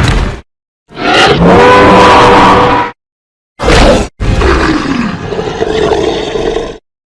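Roar sound effects of Rudy, the giant albino dinosaur, played as separate clips with dead silence between: a loud roar of about two seconds, a short burst of about half a second, then a longer roar of over two seconds that falls in pitch.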